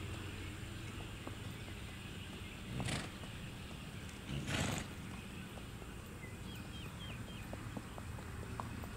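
Paso Fino horse snorting twice, two short breathy blasts about a second and a half apart, over faint hoofbeats on dirt.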